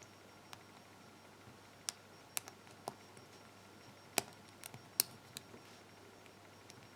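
Lock picking in a pin tumbler lock: the metal pick and tension wrench clicking against the pins and keyway. It comes as a scatter of single sharp ticks, about eight in all, the loudest two about four and five seconds in.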